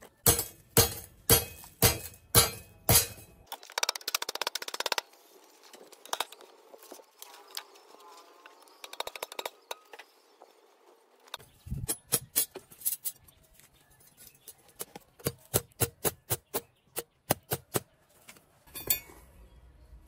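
Sharp knocks and metallic clinks from hand tools working steel rod and a cement form: six evenly spaced strikes about half a second apart, a quick rattle, then after a quieter stretch a long run of faster taps and one last burst near the end.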